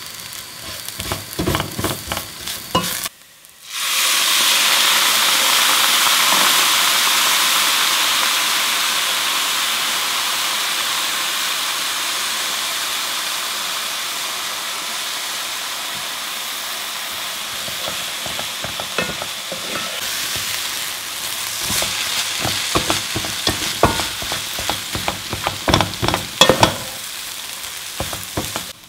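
A wooden spatula stirs and scrapes a fried bulgur and onion mixture in a non-stick pan, making rapid clicks. About four seconds in, after a short break, a loud sizzle starts as liquid hits the hot oil. It slowly dies down, and the stirring scrapes return for the last several seconds.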